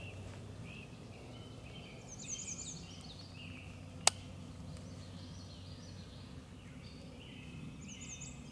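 Several songbirds singing and chirping, their short calls overlapping, with a single sharp click about four seconds in.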